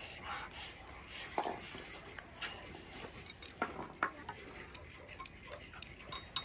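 Chopsticks clicking and tapping against stainless steel and ceramic bowls as several children eat, a scattering of short, sharp clicks at uneven intervals.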